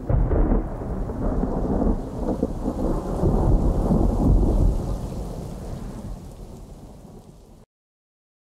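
Logo-intro sound effect: a deep, thunder-like rumble with a rain-like hiss, loud for about five seconds. It then fades and cuts off abruptly about a second before the end.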